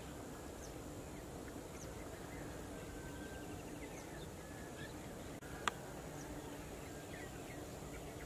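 Field ambience with scattered short bird chirps over a steady low background noise, and a single sharp click a little past halfway.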